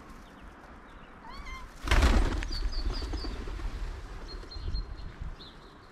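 A cat gives a short meow a little over a second in. It is followed by a sudden loud thump with a low rumble, the loudest sound here, and then a quick run of high bird chirps.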